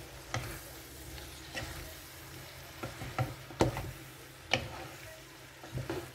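Two wooden spatulas stirring and tossing sliced vegetables in sauce in a nonstick pot, with irregular knocks and scrapes of wood against the pot, loudest about halfway through. A faint sizzle from the pot runs underneath.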